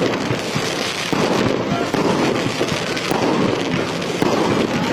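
Fireworks display in full barrage: a continuous, dense crackle of many overlapping pops and bursts with no pauses.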